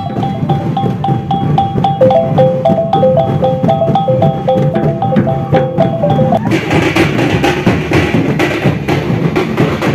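Minangkabau procession music: a short melody of pitched notes repeats over steady low drumming. About six and a half seconds in the melody stops and the big double-headed gandang tambua drums take over, dense and loud.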